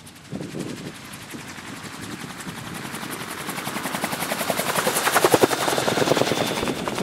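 Gyroplane's engine and pusher propeller at full power with a rapid even pulsing, growing louder as it runs toward and past on a take-off, loudest about five seconds in.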